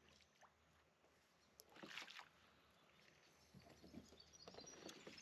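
Near silence with faint water sounds from a kayak on the river, including a brief soft swish about two seconds in and a few small clicks.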